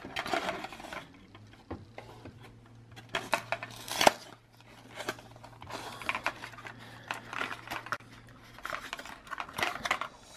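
Toy packaging being opened by hand: irregular rustling, clicking and clattering of plastic and cardboard, with one sharp click about four seconds in.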